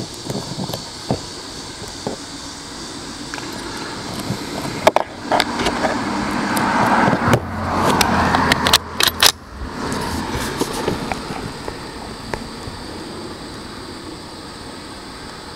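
Small sharp metallic clicks and clinks of .22 rimfire cartridges and a Ruger 10/22 rifle being handled and loaded, a louder click about five seconds in and a quick cluster near nine seconds. Behind them a vehicle passes, building up to about eight seconds in and fading away by ten.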